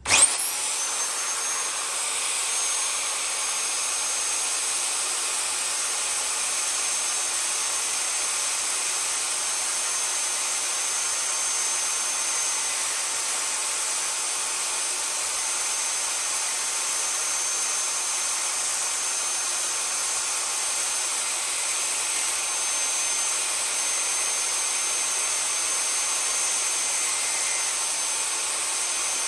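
An electric power-tool motor switches on and runs at a steady high speed, giving a constant high-pitched whine.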